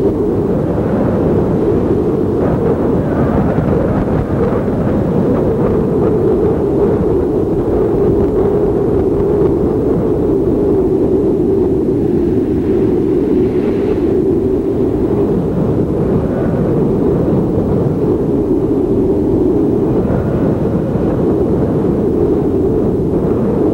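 Steady loud rumble of a truck driving along a road: engine and tyre noise, unbroken.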